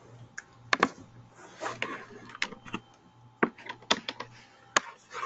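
Scattered sharp clicks of laptop keys being pressed, irregularly spaced, over a faint low pulsing hum.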